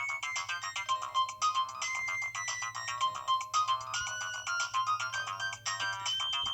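Nokia 6060 mobile phone ringtone: a melody of quick electronic notes, several sounding at once and changing a few times a second.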